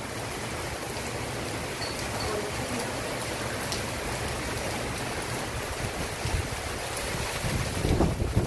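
Heavy rain pouring steadily, driven by strong gusty wind. Near the end, gusts buffet the microphone with low rumbling.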